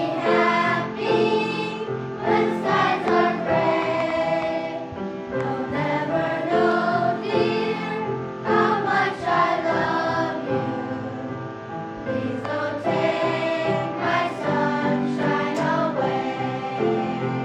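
Children's choir singing a song in unison.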